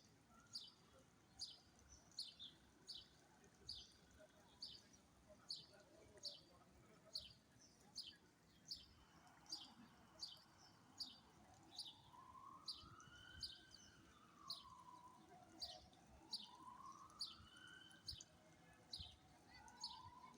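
A small bird chirping over and over in a steady rhythm, a short high chirp about every three-quarters of a second. In the second half a fainter, lower tone slowly rises and falls twice.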